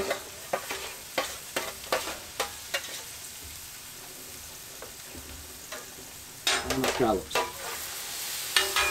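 Steak and vegetables sizzling on a hot flat-top griddle, with a metal spatula tapping and scraping the steel surface about half a dozen times in the first three seconds. About six and a half seconds in comes a louder run of metal clatter with brief ringing as the scallops go down and a steel dome lid is handled, and a shorter one near the end.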